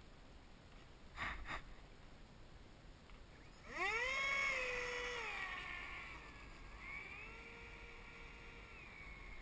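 A small electric motor whine, most likely the model T-45 jet's electric fan motor being throttled up on the ground. The pitch sweeps up quickly about four seconds in, holds, eases off, then holds steady and quieter until near the end. Two short knocks come about a second in.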